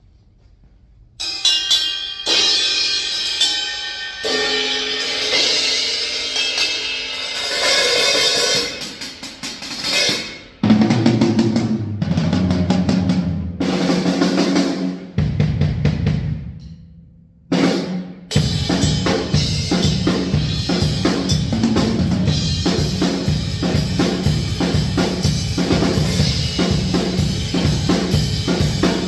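DW Santa Monica Collector's Series drum kit with Sabian AAX Xplosion cymbals being played in a sound check. About a second in, bright cymbal strikes begin and ring on. Heavier, lower drum hits follow. From about eighteen seconds a steady, even beat is played on the full kit.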